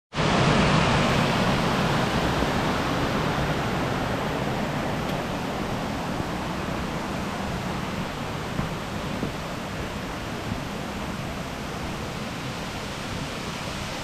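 Waterfall cascades rushing steadily over rock ledges, loudest at first and slowly growing fainter over the first ten seconds or so.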